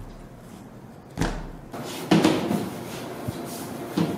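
Whole wheat dough being kneaded by hand in a glass bowl: dull thumps as the dough is pressed and pushed against the bowl, about a second in, again about two seconds in and near the end, with soft rubbing in between.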